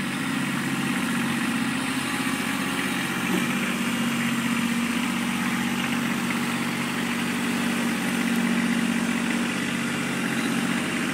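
Kubota compact tractor's diesel engine running steadily at low speed while the tractor is driven and its front loader worked.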